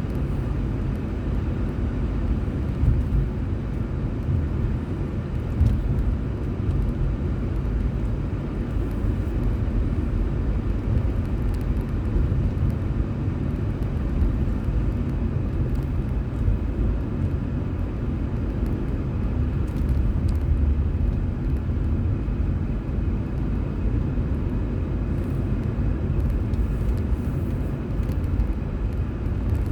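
Steady road and engine rumble of a moving car, heard from inside the cabin through a dashboard drive recorder, with an occasional small bump.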